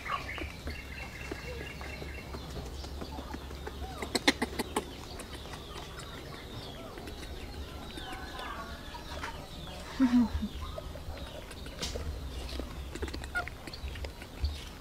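Scattered short chirping animal calls, with a quick rattle of clicks about four seconds in and a short, loud low sound about ten seconds in.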